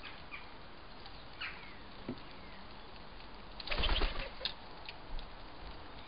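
Wood pigeon's wings flapping as it flies in and lands on the roof of a wooden bird table, a single burst of flapping about four seconds in, followed by a few light knocks. Faint, short chirps of small birds come before it.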